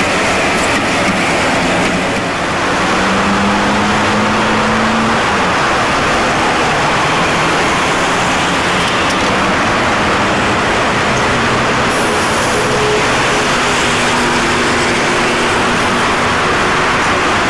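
Steady street traffic noise as 1950s ex-Vestische articulated tramcars run on roadside track, one moving away and another drawing near. Faint motor hums rise and fade, and come through more near the end as the approaching tram gets close.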